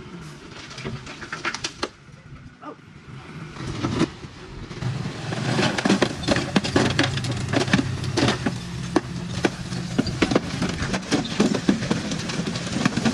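Heavy earthmoving machinery working rubble: a diesel engine running with a steady low hum under a dense clatter of metallic clanks and knocks. It grows louder and busier from about five seconds in.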